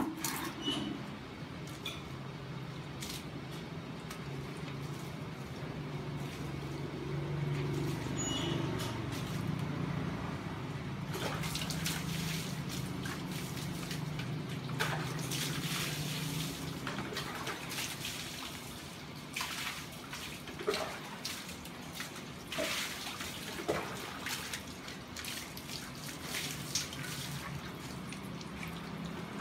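Water splashing and dripping on a tiled floor while a wet dog is scrubbed and rinsed from a bucket, with irregular splashes through the second half. A sharp knock at the very start.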